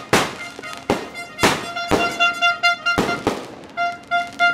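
Aerial fireworks shells bursting in a string of sharp bangs, about six of them. In the second half a high tone beeps in quick even pulses.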